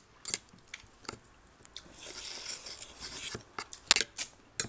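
Metal spoons and forks clinking and scraping on ceramic plates, a string of sharp clicks with the loudest about four seconds in. Eating noises fill a stretch of about a second and a half from about two seconds in.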